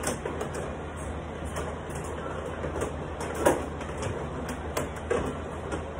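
Carrom bubble hockey table in play: the control rods and plastic players rattle and clack as they are slid and spun, with scattered sharp knocks, the loudest about three and a half seconds in, over a steady low hum.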